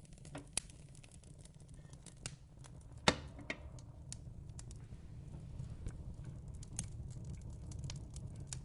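Wood fire in a fireplace crackling, with irregular sharp pops and snaps, the loudest about three seconds in, over a low steady rumble.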